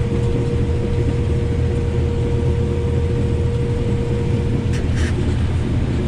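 Combine picking standing corn, heard from inside the cab: a steady, loud engine and machinery drone with a deep rumble and a steady whine that fades out about two-thirds of the way through. A few brief rattles come near the end.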